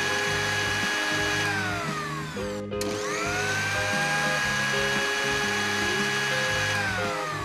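Small electric motor of a miniature mixer grinder whining as it grinds grains, winding down about two seconds in, starting up again with a rising whine just before three seconds, and slowing again near the end. Background music with a steady bass line plays under it.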